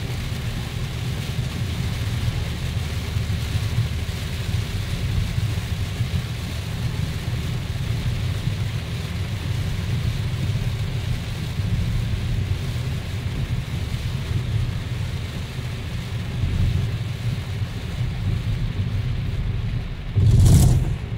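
Steady low rumble of a car driving on a wet road, heard from inside the cabin, with heavy rain hissing on the windscreen and roof. A brief, louder whoosh comes near the end.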